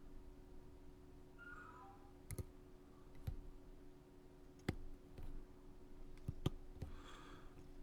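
Scattered light clicks and taps of fly-tying tools being handled at the vise while thread is wrapped, about six in all, over a faint steady hum.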